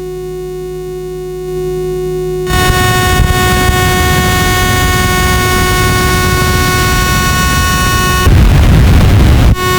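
Self-oscillating, circuit-bent feedback-loop glitch pedal built from clones of the EQD Life and DOD Carcosa circuits, droning on its own with several steady held tones over noise. About two and a half seconds in it jumps abruptly to a louder, harsher drone. Near the end the tones drop out into raw noise, cut out for an instant, and come back.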